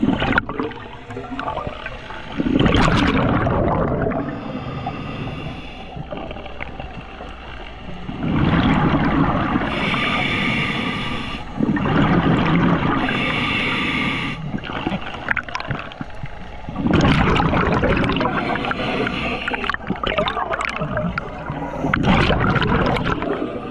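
Scuba regulator breathing underwater: hissing inhalations and bubbling exhalations in slow cycles every few seconds.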